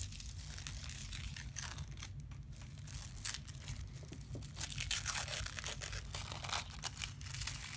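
Brown paper wrapper being ripped and peeled by hand off a rolled beeswax candle, a run of irregular paper tears and crinkles.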